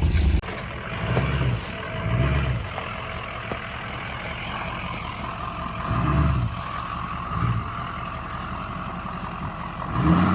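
A large diesel vehicle engine running, its revs swelling briefly several times as it works.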